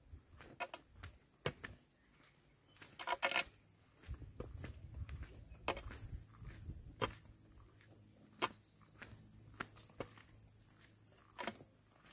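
Footsteps on a concrete path, a sharp step about every second, over a steady high-pitched insect chorus.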